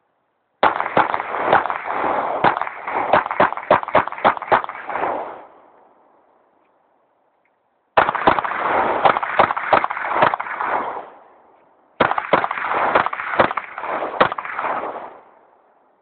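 Rapid pistol fire in three strings, each a quick run of sharp shots, a dozen or more in the first, separated by short pauses.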